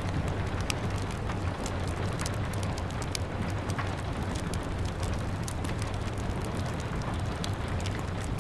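Steady rain pattering against a window with a low rumble beneath, mixed with a wood fire crackling in irregular sharp pops and snaps.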